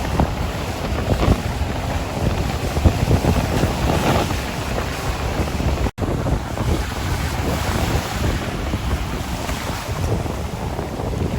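Sea waves washing on a shore, with wind rumbling and buffeting the microphone. The sound drops out for an instant about halfway through, like a splice in the recording.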